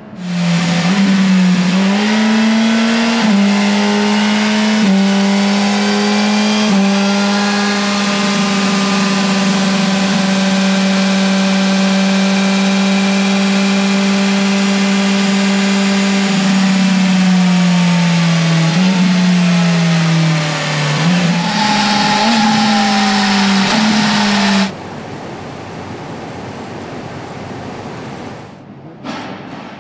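BMW S 1000 RR inline-four sportbike engine running hard on a rolling-road dynamometer during end-of-line testing. The engine pitch steps up and down at first, then holds steady, drops away and climbs again before the sound stops abruptly, leaving a quieter hum.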